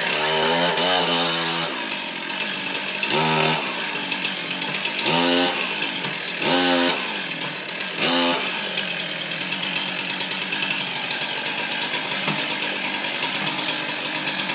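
Two-stroke chainsaw engine revved up in short bursts, about five times roughly a second and a half apart, then idling steadily.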